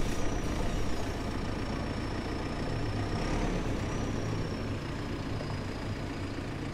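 Diesel engine of a wheeled loader running steadily as the machine drives slowly with a pallet of stone on its forks, with a faint high whine over the engine hum.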